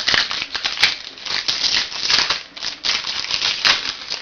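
Football trading cards being handled out of a freshly opened pack: the wrapper crinkling and the cards clicking and rustling in a dense, irregular crackle with sharp clicks.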